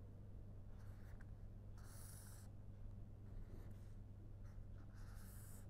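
Pen scratching on paper as a line drawing is made: a few separate strokes, the longest about two seconds in and another near the end, faint over a steady low hum.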